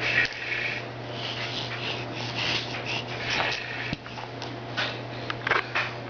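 A baby grunting in short, breathy bursts over a steady low hum.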